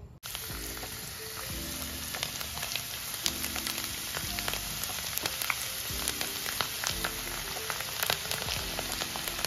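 Besan-coated okra frying in hot oil: a steady sizzle thick with small crackling pops.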